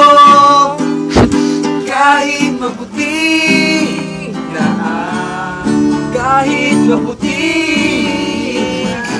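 Acoustic guitar strummed while a young man sings a Tagalog love ballad, holding a long note at the start and singing short phrases over the playing. A single sharp thump about a second in.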